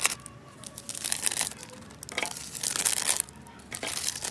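Foil-lined instant noodle seasoning sachets crinkling and rustling as they are torn open and squeezed out by hand, in several bursts with short pauses between.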